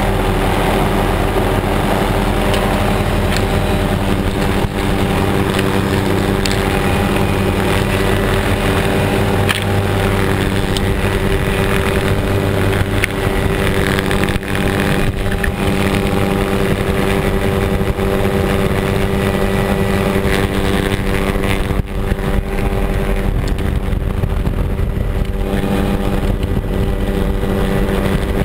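Helicopter running steadily in flight, a constant drone with several steady tones, heard from the open side with wind rushing over the microphone.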